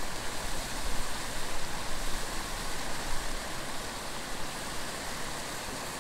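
Steady rushing hiss of running creek water, with low rumbles on the microphone during the first few seconds.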